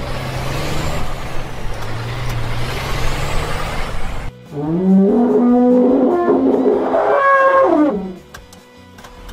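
Elephant trumpeting sound effect: after about four seconds of loud rushing noise, a pitched call rises and falls in pitch for about three seconds, then fades, over background music.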